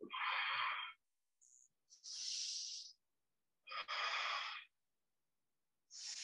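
A person breathing slowly and deeply in and out, close to the microphone. There are four breath sounds of about a second each, alternating between a lower and a higher rush of air, with short silences between them.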